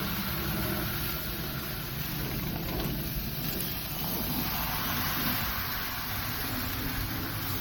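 Turkey mince burger patties sizzling on a gas-fired flat-top griddle, a steady hiss over a low, even rumble.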